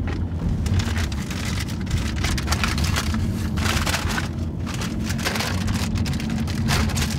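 Paper bag of fries rustling and crinkling in irregular bursts, over the steady low road rumble of a moving car's cabin.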